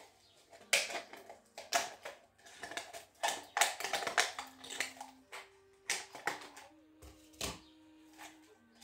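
Thin plastic drink bottle crackling and crunching as it is cut open with scissors, in a string of irregular snips and crackles that thin out near the end.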